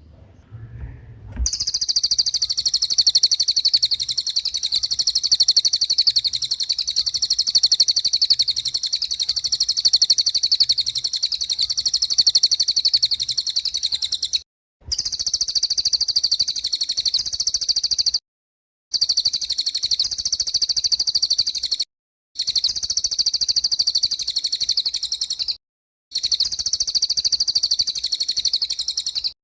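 Masteran recording of a songbird giving a continuous, very rapid, high-pitched trilling song, used to train young songbirds. It comes in long stretches broken by four brief silent gaps, after a quiet first second or so.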